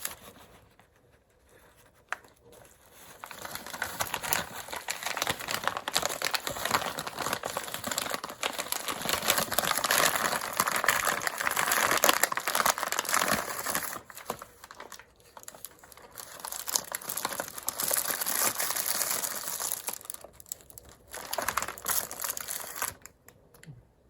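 Plastic bag crinkling and rustling as it is handled and opened, in two long stretches with a short pause about halfway through.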